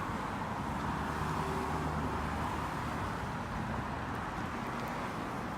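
Steady road noise from a moving car: an even low rumble with a hiss over it, and no sudden sounds.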